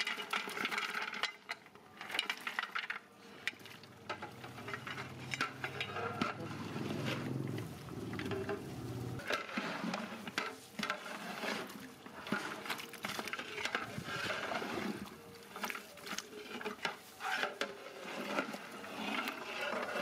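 Raw mutton pieces on the bone tipped into a large aluminium cooking pot of gravy, then a long metal ladle stirring, with irregular clanks and scrapes against the pot. A low hum runs for a few seconds in the middle.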